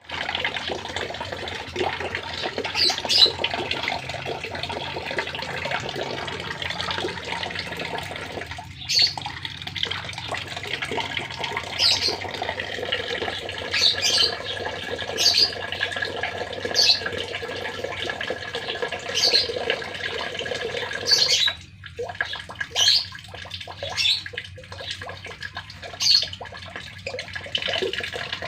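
Water running steadily, as from a tap or shower spray. It thins out briefly about 9 seconds in and again around 22 seconds. Short high-pitched sounds recur every second or two over the running water.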